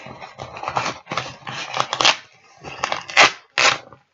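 Cardboard box and packing tape being cut and torn open, in about four rough scraping strokes, the loudest a little after three seconds in.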